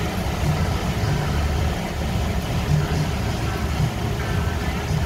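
A boat engine running steadily with a low drone, under an even wash of water and wind noise.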